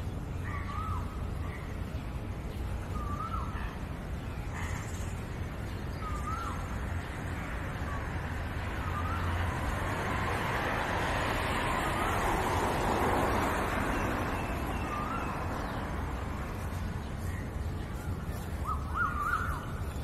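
A bird calling over and over outdoors, short wavering calls every two to three seconds, over a steady background hiss that swells for a few seconds in the middle.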